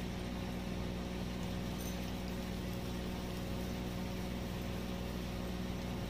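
Steady low hum over a constant hiss.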